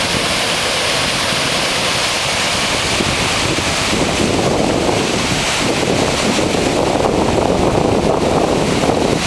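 Steady loud rush of river water flowing beneath a suspension footbridge, mixed with wind buffeting the microphone.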